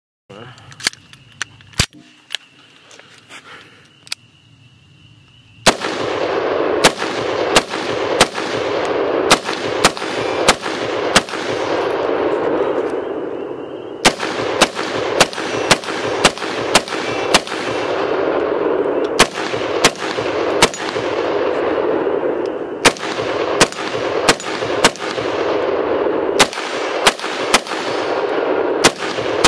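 Sig Sauer MCX Rattler short-barreled rifle in 5.56 firing shot after shot, about two a second, starting about six seconds in.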